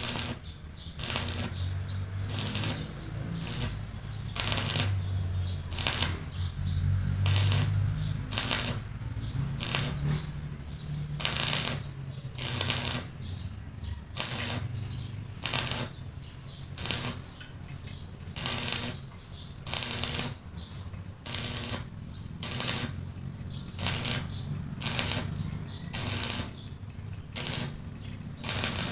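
A hand tool scraping on metal in steady back-and-forth strokes, about one and a half strokes a second, over a low steady hum.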